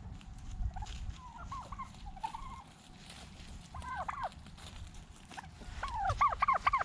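Domestic turkey toms gobbling: a few short, quieter gobbles, then a longer, louder gobble near the end.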